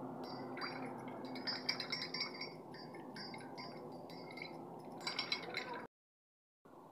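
A paintbrush stirring and tapping in a small steel bowl of paint, making a run of light ringing metallic clinks over a steady background hum. The sound cuts out abruptly near the end.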